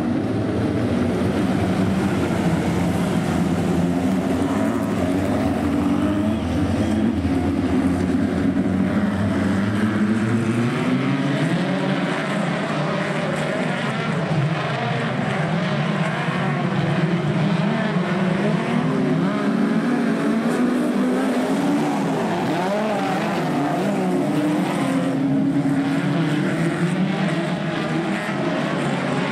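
A pack of speedcar (midget race car) engines running together, several overlapping engine notes wavering up and down in pitch as the cars circulate.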